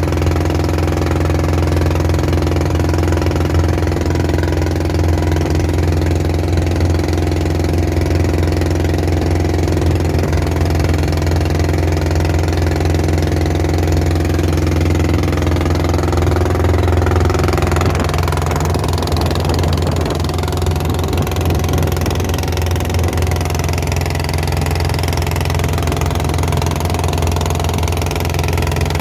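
Long-tail boat engine running steadily under way, with a change in its note about two-thirds of the way through.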